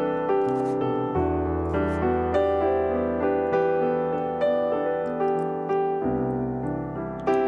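Background piano music, with notes played at a gentle, even pace.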